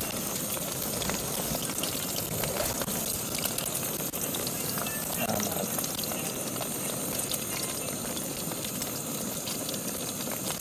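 Small gas camping stove burning under a frying pan, with eggs frying in oil: a steady hiss with a fine crackling sizzle.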